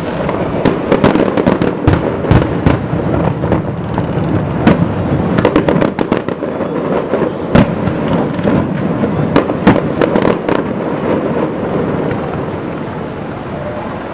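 Fireworks display: rapid bangs and crackles over a continuous rumble, thinning out and quietening after about ten seconds.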